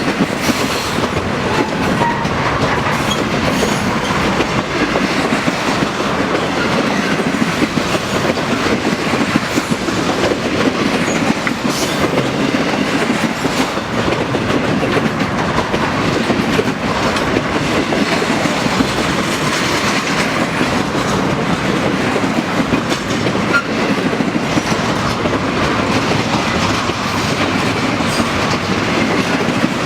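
Intermodal freight train's cars rolling steadily past, steel wheels clicking over rail joints.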